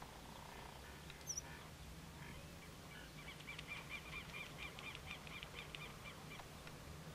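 White-headed marsh tyrant calling: two short, sharp, very high notes in the first second and a half, then a fast run of repeated chirps, about five a second, lasting about three seconds.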